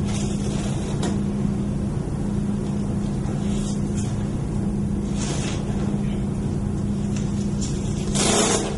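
A steady low electrical hum, with scattered rustling as the straps of a leg splint are handled and fastened. A short, loud rasping noise comes near the end.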